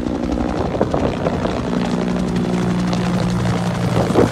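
Bell UH-1 Iroquois helicopter passing overhead: a steady drone with the rapid beat of its two-bladed main rotor. The drone drops in pitch a little under two seconds in.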